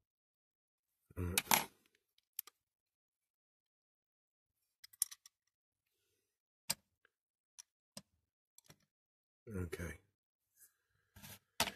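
Sparse, light clicks and taps of small hand tools and die-cast model parts being handled during reassembly, with a short breath or murmur about a second in.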